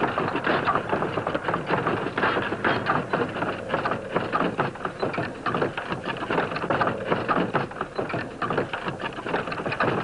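Wagon and its draught animal crossing a wooden plank bridge: hooves and wheels clattering on the boards in a dense, irregular run of knocks.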